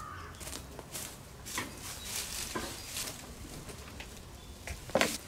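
Footsteps on a wood-chip floor and a go-kart being handled: irregular soft clicks and shuffles, with two louder knocks near the end.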